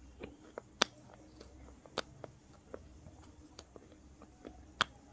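Slate pencil being chewed: a series of sharp, dry crunches, the three loudest about one, two and nearly five seconds in, with fainter crackles between.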